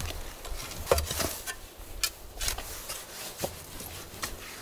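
A short-handled spade digging into soil: irregular scrapes and gritty knocks as the blade cuts in and lifts earth.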